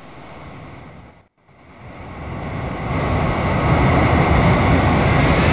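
Jet aircraft engine noise that cuts out briefly about a second in, then swells over a couple of seconds into a steady loud rush with a faint high whine.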